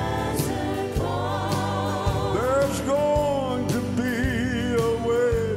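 Live gospel song: a vocal group sings sustained lines with vibrato over piano and a band with a steady beat.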